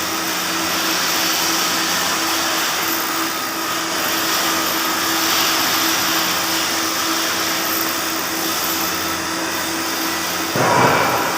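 Flux-cored arc welding with 1.2 mm wire: the arc's steady hiss and crackle, over a faint steady low hum. About ten and a half seconds in there is a brief louder rush of noise.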